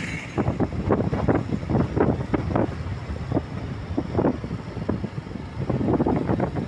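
Wind buffeting the microphone in irregular gusts over the noise of a moving vehicle.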